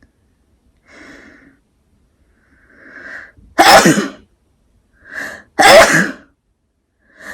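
A person sneezing twice, each loud sneeze coming right after a short, catching intake of breath. The sneezes are set off by a twisted paper string (kovori) tickling inside the nostril.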